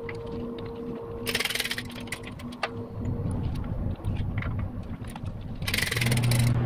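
Small set screws on a transmission-snout repair sleeve being tightened with a hex key: light metal clicks and scraping, with two short bursts of hiss, over a steady low hum.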